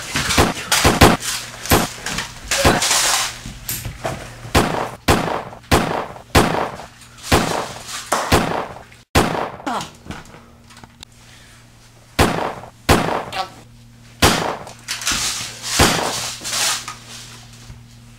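A rapid, irregular series of sharp knocks, thuds and crashes, about one or two a second, some followed by a brief rushing noise, with a lull in the last few seconds.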